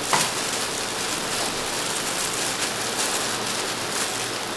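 Aluminium foil and thin plastic gloves crinkling and crackling as foil is peeled off a steamed roll, over a steady hiss.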